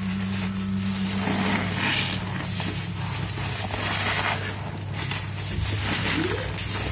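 Thick, soapy foam sponges cut from mattress foam being squeezed again and again in rubber-gloved hands: wet squelching and crackling of suds in repeated bursts. A steady low hum runs underneath.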